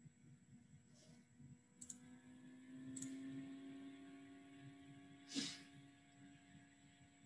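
Near silence on a video-call line: a faint steady hum, a couple of small clicks, and one short puff of noise about five seconds in.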